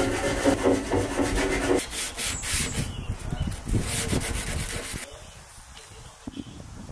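Handheld power tool stripping the bare steel of a car's engine bay. A steady pitched motor whine comes first, then loud, scratchy abrasive scrubbing that cuts off suddenly about five seconds in.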